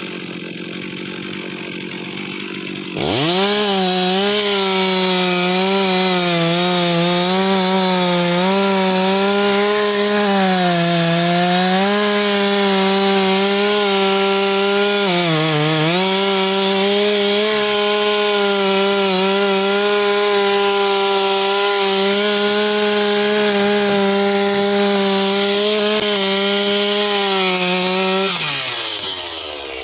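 Chainsaw revving up to full throttle about three seconds in and running at steady high speed through a long cut in teak wood. Its pitch dips briefly midway as the saw bogs under load, then it winds down near the end.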